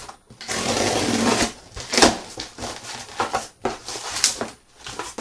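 Rustling of packaging as items are dug out of a parcel, followed by a series of sharp clicks and knocks of objects being handled.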